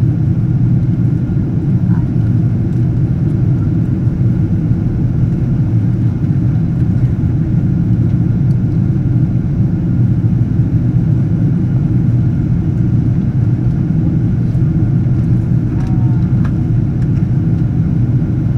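Steady low rumble of engine and airflow noise inside the cabin of a Boeing 777-200 airliner on final approach, with a faint steady higher tone above it.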